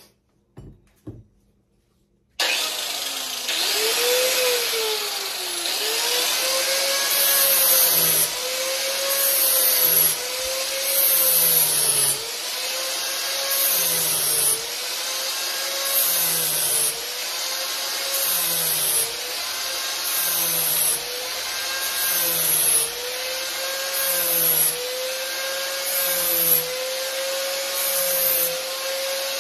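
Angle grinder with a flap wheel switched on about two seconds in, then sanding down the end of a wooden axe handle to fit the axe head. It works in repeated passes, the motor's pitch dipping under load and recovering about every two seconds.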